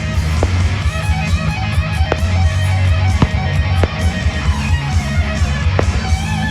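Loud music led by strummed guitar over a heavy bass, with a few sharp cracks at irregular moments over it.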